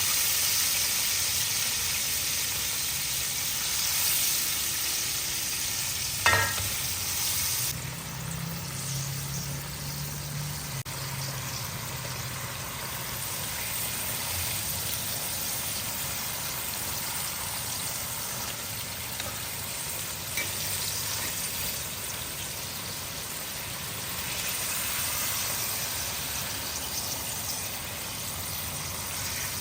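Food frying in hot oil, a steady sizzle, with one sharp knock about six seconds in; a second later the sizzle turns quieter and duller.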